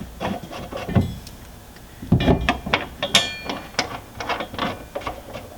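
Light metallic clicks and taps of bolts being started into a replacement seat rail bracket. There is a single knock about a second in, then a busier run of clicks from about two seconds in, with a brief metallic ring.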